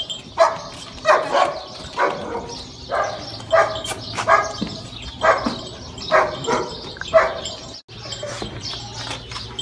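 A dog barking repeatedly, about ten short barks roughly a second apart, stopping near the end.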